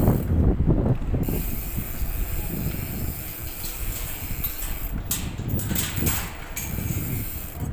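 Bicycle ride heard from a chest-mounted phone: a steady low rumble of the ride, with a run of clicking and rattling about five seconds in.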